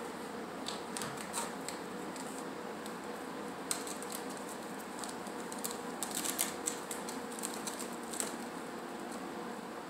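Kitten claws catching and scratching on the sisal-rope post and carpeted platforms of a cat tree: scattered light, sharp clicks, a few about a second in and a busier run from about four to eight seconds in, over a steady faint room hum.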